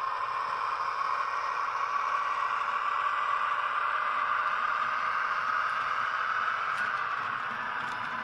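H0-scale model train, an ÖBB class 2043 diesel locomotive hauling freight wagons, running past with a steady whirring of motor and wheels on the track, a little louder as it passes closest. Light clicks start near the end.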